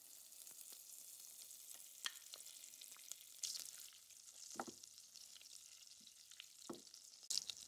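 Butter faintly sizzling as it melts and bubbles in a stainless steel pot, with a wooden spoon stirring it and tapping against the pot a few times.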